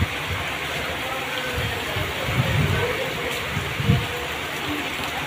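Torrential rain pouring steadily onto a road in strong wind. Two brief low gusts of wind hit the microphone, about halfway through and again a little later.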